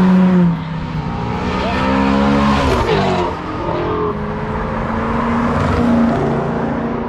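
Cars pulling out past the roadside one after another, engines accelerating, with the engine note gliding up and down through the middle as a car revs and goes by. Near the end a yellow Ford Mustang passes close.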